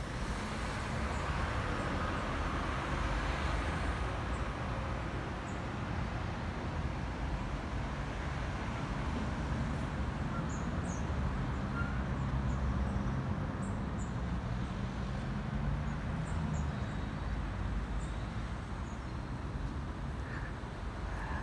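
Steady low rumble of town traffic, with a vehicle's hum passing in the middle and a few faint bird chirps.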